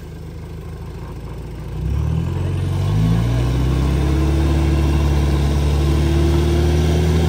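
Four-wheel-drive jeep engine running, revving up in two steps about two and three seconds in and then held at high revs, with a slowly rising whine on top, as the vehicle is winched out of deep mud.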